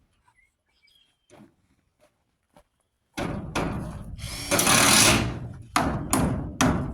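Roofing work: about three seconds in, a loud burst of tool noise starts, then rapid, even hammer blows, about two and a half a second.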